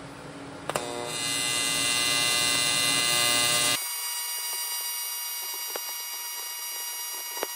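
AC TIG welding arc on aluminium from a PrimeWeld AC inverter welder, buzzing steadily. The buzz is loudest with a low rumble for the first four seconds, then changes abruptly to a thinner buzz that goes on.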